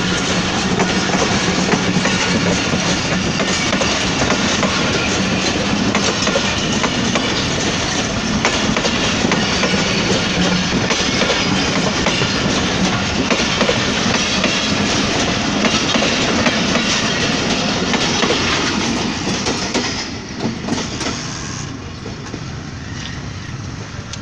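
Millat Express passenger coaches rolling past at close range, the wheels clattering over the rail joints in a steady clickety-clack. The sound drops away sharply near the end as the last coach passes.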